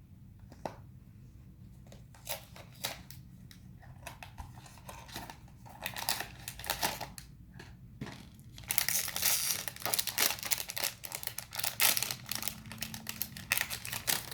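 Blind-box toy packaging being handled and opened: a few scattered clicks and rustles, then from about nine seconds in, dense crinkling and tearing of the wrapping.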